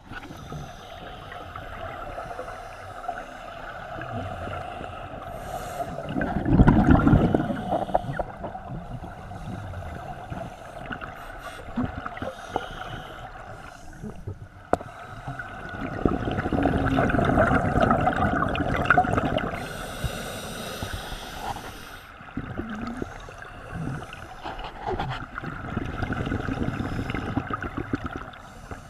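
Scuba divers breathing through regulators, heard underwater through a camera housing: swells of exhaled bubbles gurgling, the loudest about six and sixteen seconds in, with a short hiss of an inhale around twenty seconds.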